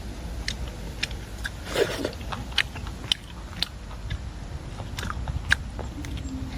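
A person eating grilled snakehead fish: irregular chewing and crunching with scattered sharp clicks, one fuller crunch about two seconds in.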